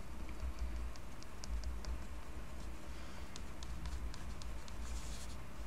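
A pen tip ticking lightly on paper as short strokes are drawn, about three or four ticks a second with a pause midway, over a low steady hum.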